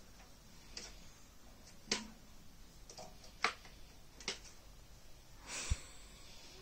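About five light, sharp clicks spread roughly a second apart, then a short rustle and a soft thump near the end as the baby tips forward onto the bedding.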